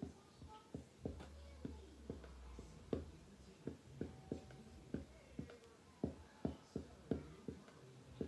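Dry-erase marker writing on a whiteboard: a quick run of short taps and strokes as letters are written, roughly two or three a second.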